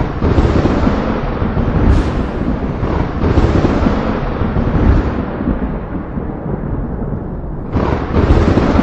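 Thunder rolling and rumbling continuously, with sharp cracks breaking in about two seconds in and again near the end.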